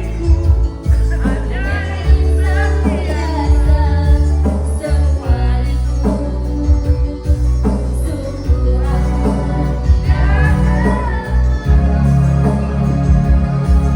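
Music with a singing voice over a strong, steady bass line.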